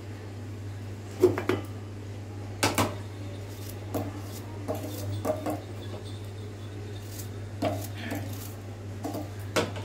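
Scattered light clinks and knocks of a knife and dishes while apple pieces are cut and cored, about seven in all, the sharpest about a second in.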